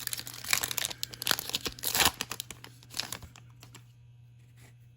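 Baseball card pack wrapper crinkling and tearing as it is ripped open and handled, with dense crackles that die down about three seconds in.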